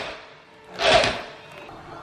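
Cordless drill spinning a driver bit in a short burst about a second in, driving a screw into a cabinet door, with faint background music under it.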